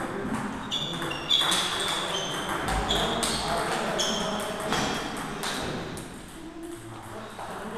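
Table tennis rally: the ball clicking off the bats and the table, each hit with a short ping, about one hit every two-thirds of a second. The hits stop about five and a half seconds in as the point ends.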